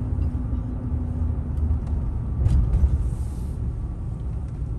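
Road and engine noise inside a moving car's cabin: a steady low rumble, with a single light click a little past halfway.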